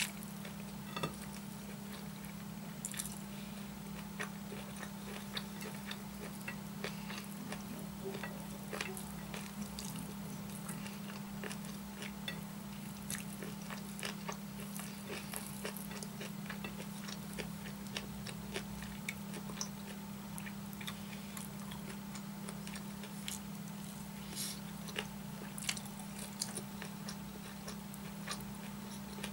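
Close-miked eating by hand: chewing and mouth sounds from a mouthful of fried chicken gizzard, purple cabbage, potato and rice, heard as many irregular small clicks and smacks. A steady low hum lies underneath.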